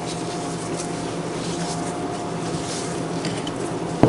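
Steady background hum with a faint constant tone, a few faint metal clicks from a wrench working a fitting on a pressure washer pump head, and one sharp knock near the end.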